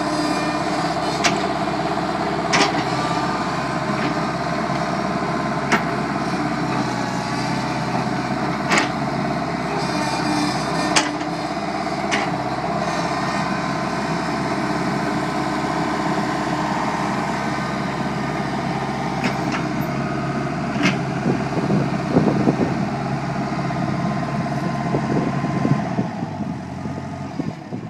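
Bobcat skid-steer loader engine running steadily while it works a backhoe attachment, with scattered sharp metallic knocks. The engine sound drops off about two seconds before the end.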